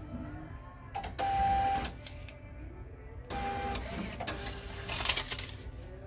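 An ATM's receipt printer running in two bursts, one about a second in and one just past three seconds, each with a steady whine. More rapid mechanical printer noise follows, as it prints the slip for the cash just loaded into the machine.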